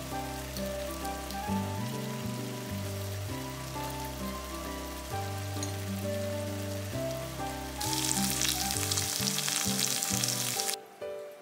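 Light background music with a melody and bass throughout. About eight seconds in, taco meat (seasoned ground meat) sizzles loudly in a frying pan for about three seconds, then cuts off suddenly.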